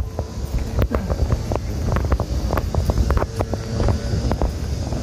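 Wind buffeting the microphone, a low fluctuating rumble, with scattered short taps and clicks of footsteps on stone paving as the camera is carried along.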